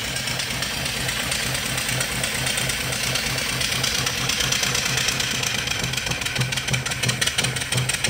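Antique-reproduction vertical single-cylinder steam engine, 3-inch bore and 4-inch stroke, running steadily under steam, its exhaust puffing in an even rhythm over a continuous hiss.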